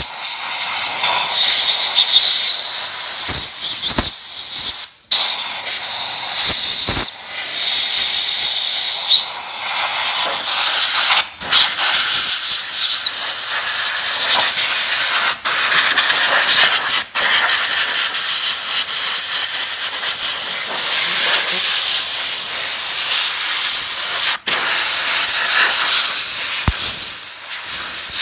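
High-pressure spray nozzle hissing steadily against a freshly blasted aluminium crankcase, stopping briefly several times.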